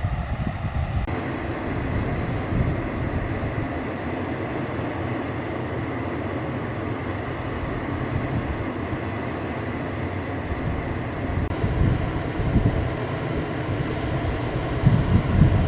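Wind buffeting the microphone: a steady rushing noise with gusty low rumble, changing character about a second in.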